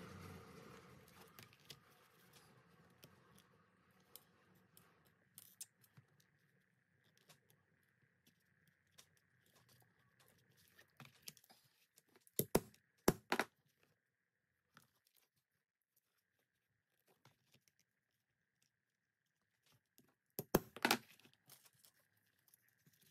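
Leather and leatherworking tools being handled: scattered small clicks and rustles, with a pair of louder short strokes about twelve and a half seconds in and another pair about twenty and a half seconds in.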